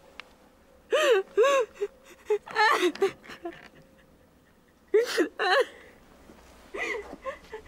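A woman sobbing: a run of gasping, wavering cries in several bursts, with quiet breaks between them.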